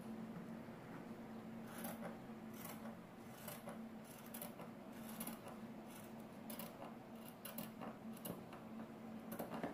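Scissors cutting thin fabric: a quiet, irregular series of short snips, roughly one every half second to a second, over a faint steady hum.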